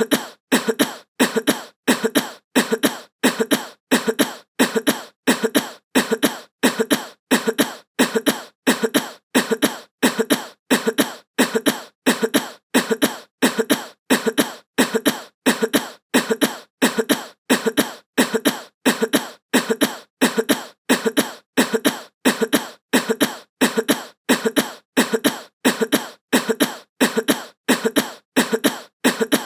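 A short cough sound effect looped over and over at an even pace, a little under twice a second, each cough with a double hit.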